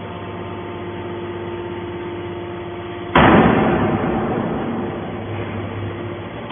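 Heavy scrap-baling machinery running with a steady hum; about three seconds in, a sudden loud crash of scrap metal that dies away over a second or two.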